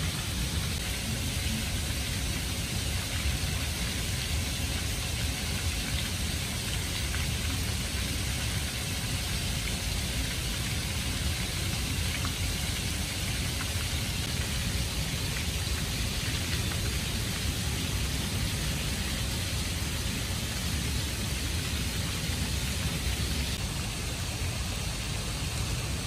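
Water falling in thin streams down a stone-clad water-wall fountain and splashing into a swimming pool: a steady, even splashing hiss over a low rumble.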